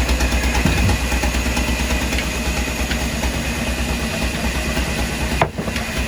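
An engine running steadily at idle with an even, fast pulse, cut off by a brief sharp dropout near the end.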